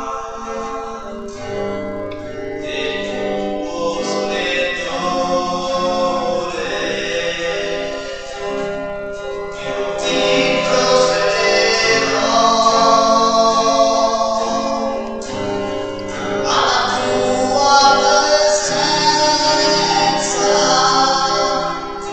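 Choir singing a hymn with instrumental accompaniment, growing louder about ten seconds in. It is the entrance hymn at the opening of a Catholic Mass.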